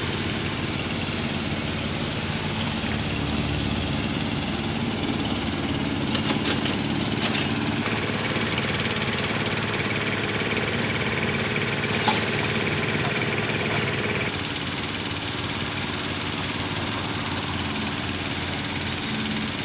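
Engine running steadily, a continuous hum, with one sharp click about twelve seconds in and a slight drop in level a couple of seconds later.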